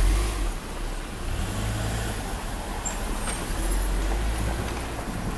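Steady low rumble of a passing vehicle, loudest at the very start.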